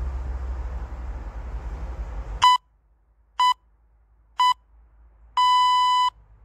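Steady low rumble, then a workout interval timer counting down: three short high beeps a second apart and a longer beep about a second later, marking the end of the timed hold.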